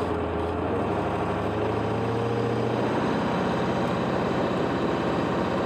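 Truck engine running steadily while the loaded truck is under way in a low gear.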